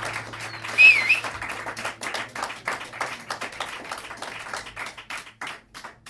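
Small audience clapping at the end of an acoustic blues song, with a short sharp whistle about a second in; the clapping thins out and dies away near the end.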